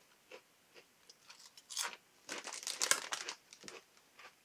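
Crunching and chewing of a ridged potato crisp, McCoy's ridged crisps, in quick crackly bites that are loudest about two to three seconds in, then trail off into softer chews.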